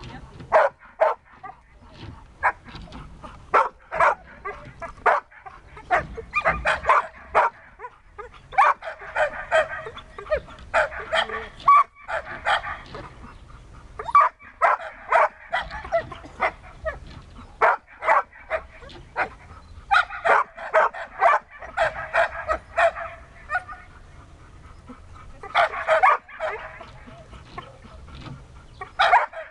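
Siberian husky barking and yipping over and over at a hide box, with several longer runs of rapid barks broken by short pauses. These barks are a search-and-rescue dog's bark alert.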